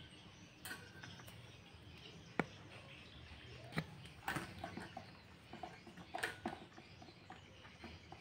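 A few scattered sharp clicks and light taps of a Sanex 10-inch desk fan's front grille being fitted onto its rear guard and handled, the clearest about two and a half and four seconds in.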